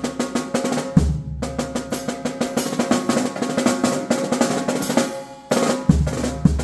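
Drum kit played solo: fast snare rolls and fills with bass-drum hits, one about a second in and a cluster near the end.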